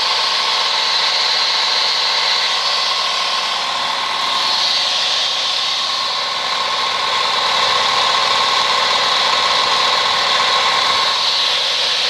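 Homemade stone-cutting saw running free with no cut: its electric motor, run on start and run capacitors, spins the diamond disc with a steady, even hum.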